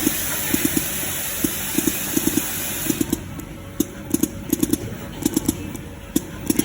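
Automatic silicone dispensing machine at work: irregular clusters of short clicks and knocks over a steady mechanical noise, with a high hiss that drops away about three seconds in.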